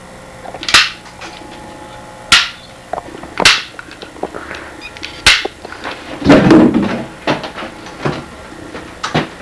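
Hand staple gun fired again and again, a sharp clack every second or so, with a louder, longer sound about six seconds in.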